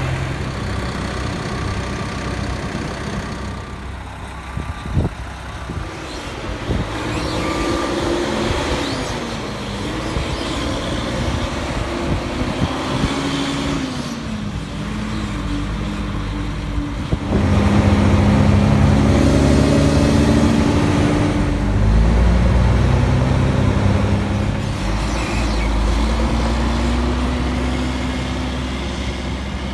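Mack dump truck's diesel engine pulling a loaded trailer, its pitch climbing and dropping again and again as the driver works up through the gears of the manual 10-speed. A few sharp knocks come about five seconds in. The engine is loudest about two-thirds of the way through.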